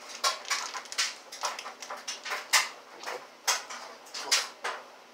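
Plastic soda bottle being handled: irregular crinkling clicks and crackles of the plastic, the loudest about two and a half seconds in.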